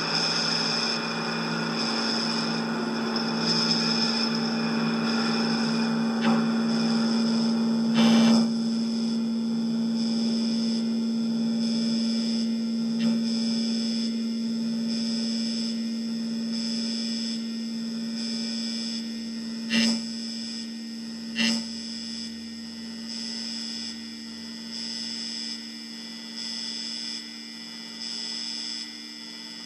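A steady droning hum with a thin high whine above it and a hiss, broken by a few sharp clicks. Near the end it starts to pulse on and off in a slow, even rhythm.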